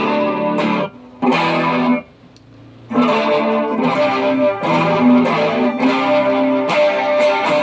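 Electric guitar played through a pedalboard of effects: ringing chords that are muted about a second in and again for about a second near two seconds, then played on and let sustain.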